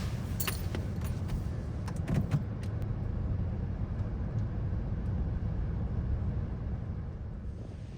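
Minivan engine idling, a steady low rumble, with a few light clicks and knocks in the first three seconds.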